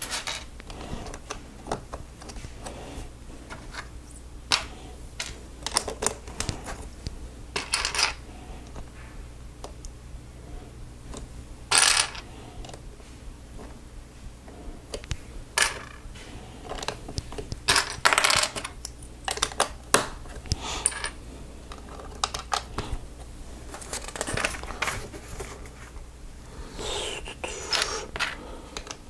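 Small plastic Lego pieces clicking and rattling as they are picked out of loose parts and pressed together, in irregular sharp clicks with a few short rattling bursts.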